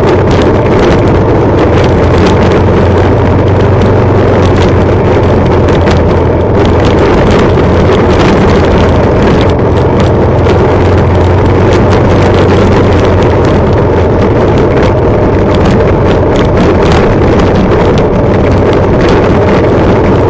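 Motorcycle engine running steadily under way close to the microphone, with wind buffeting the microphone and scattered knocks from riding over a rough gravel road.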